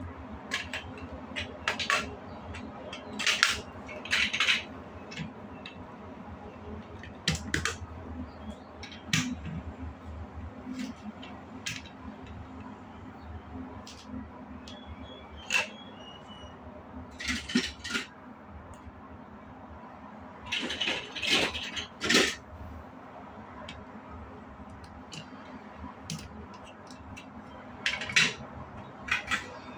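Plastic building blocks clicking and rattling as pieces are handled and pressed together, in irregular clusters of light clicks, the busiest about 3 seconds in, near 17 seconds and around 21 seconds. A faint steady hum runs underneath.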